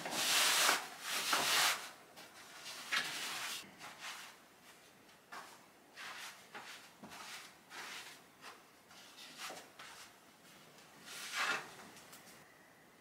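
Knit fabric rustling and rubbing as a sleeveless knit top is pulled onto and smoothed over a dress form, in irregular bursts with a few soft knocks.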